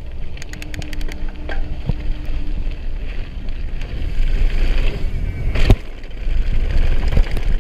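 Downhill mountain bike rolling down a gravel trail: wind buffeting the bike-mounted action camera's microphone over the rattle of tyres on loose gravel. A burst of rapid clicks comes about half a second in, and a sharp knock from a bump comes near the six-second mark.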